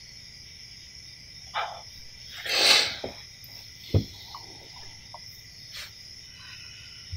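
Steady high chirring of crickets at night. A brief rushing swell, the loudest sound, comes a little after two and a half seconds in, and a short low thump about four seconds in.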